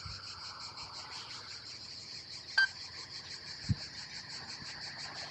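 Crickets chirping steadily in a fast pulsing trill, with a short faint beep about two and a half seconds in and a soft thump near four seconds.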